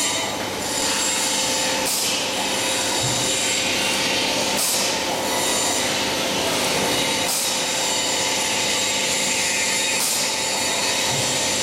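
Plastic apron making machine running: a steady mechanical whirr with a faint steady hum, and a short swish repeating about every two and a half to three seconds, four times, as the machine cycles.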